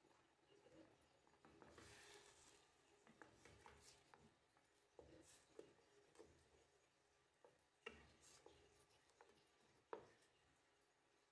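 Faint scraping and squishing of a wooden spatula moving stuffed vegetables through tomato sauce in a stainless steel pot, with a few light knocks of the spatula against the pot.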